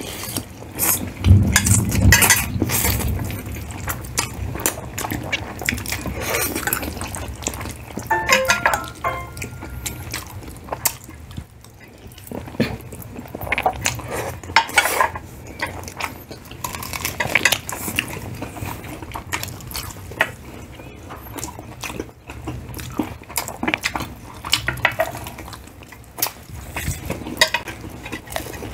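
Forks and spoons clinking and scraping on plates while spaghetti and fried chicken are eaten, in many short irregular clicks.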